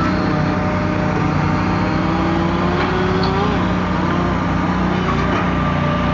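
Engines of firewood-processing machinery running steadily, with a pitched whine that climbs slowly and drops back about three and a half seconds in.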